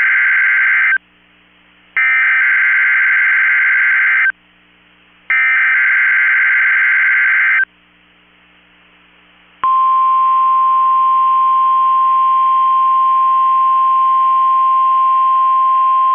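NOAA Weather Radio EAS alert signal: SAME digital header bursts, warbling data tones sent three times, each about two seconds long with a second's gap between them. About ten seconds in, the steady 1050 Hz weather radio warning alarm tone starts and holds. These signals switch on the specially built weather alert radios; here they are sent for the required weekly test.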